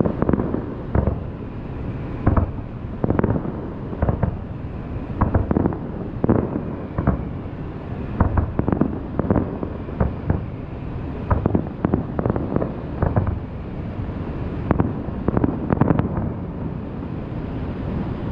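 Fireworks show: aerial shell bursts going off in an irregular run, about one to two booms a second, each with a short echo. Wind rumbles on the microphone underneath.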